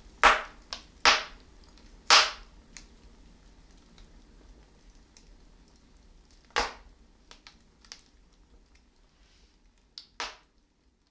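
Wood fire burning in a brick bread oven: logs crackling, with five loud sharp pops spaced irregularly and fainter crackles between them. The sound cuts off near the end.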